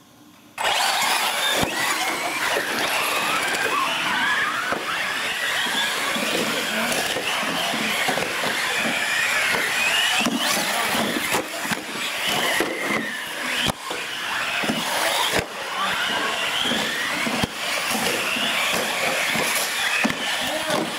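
Several radio-controlled UTV trucks launching together about half a second in and racing on a concrete floor: their electric motors whine, the pitch rising and falling with throttle, over tyre noise, with a few short knocks from bumps and landings.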